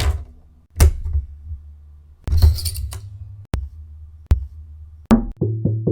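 A run of separate short animation sound effects: two thuds with a low boom, a brief noisy crash about two seconds in, then three sharp clicks. A percussive, evenly paced tune starts near the end.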